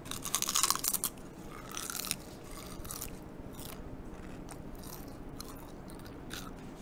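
Crisp Gohyang Mandu meat-dumpling chip being bitten and chewed close to the microphone: a burst of loud crunches in the first second, another near two seconds in, then fainter crackles as it is chewed down.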